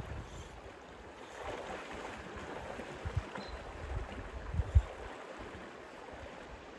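River current flowing steadily, with wind gusts rumbling on the microphone and a few brief low bumps around the middle.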